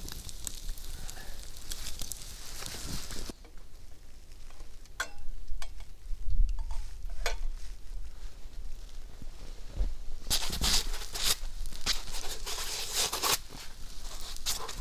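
Long fire of two stacked logs crackling close up with a steady high hiss for the first three seconds, then, further off, only a few sharp crackles. About ten seconds in, a run of irregular crunching and rustling as a person moves about in snow handling a foam sleeping mat.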